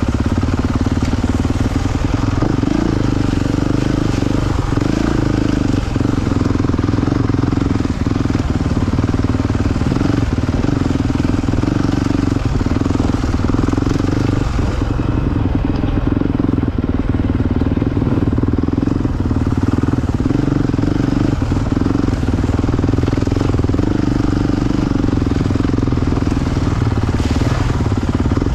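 Dirt bike engine running steadily at an even, low throttle on a trail ride, heard from the bike being ridden. A few faint knocks come through now and then.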